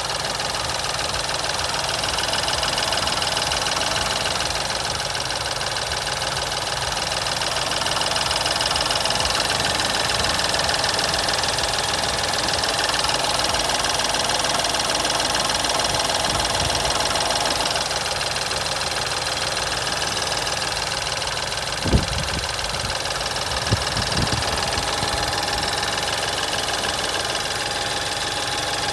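BMW F11 528i Touring's engine running with a diesel-like rattling clatter, the abnormal engine noise its owner hears after start-up. Two brief thumps about two-thirds of the way through.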